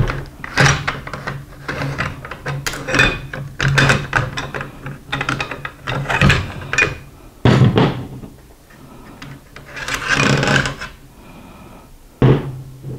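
Steel parts of a StG 44 rifle being handled during field stripping: a string of irregular clicks, knocks and short sliding scrapes as the cocking handle, bolt carrier and bolt are drawn out of the receiver. A steady low hum runs underneath.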